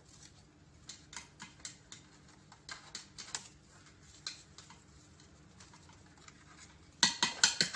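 Light scattered clicks and rustles of paper play money being handled. About seven seconds in, a louder rapid flurry of plastic clicks and rattles comes from the toy cash register.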